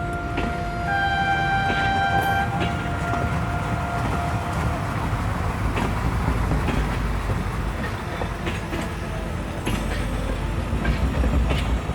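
Train running with a steady low rumble and scattered clicks, its horn sounding once for about a second and a half near the start.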